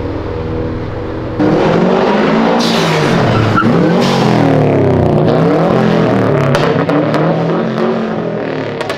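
A modified Subaru Impreza wagon's engine revving hard as it accelerates past, its pitch climbing and dropping again and again, then easing as it pulls away near the end. It cuts in abruptly about a second and a half in, replacing a steadier engine drone.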